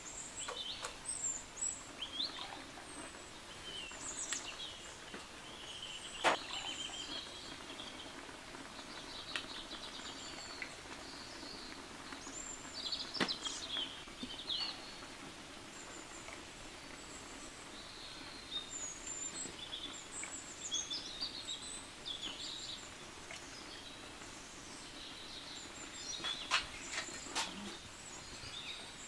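Small birds chirping and calling on and off over a low background hiss, with a few sharp knocks about six seconds in, about thirteen seconds in and near the end.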